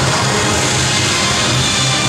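Loud dance music with a pulsing bass line, played for a Latin formation dance routine.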